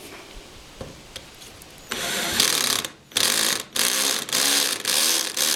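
Screw gun driving a #6 self-drilling sheet-metal screw into metal, its motor run in a series of about six short bursts starting about two seconds in. The gun's clutch is set low so the screw goes in slowly without stripping the threads.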